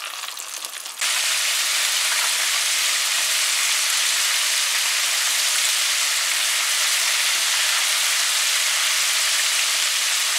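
Chicken wings deep-frying in hot oil in a pot: a steady, even sizzle that jumps louder about a second in and then holds level.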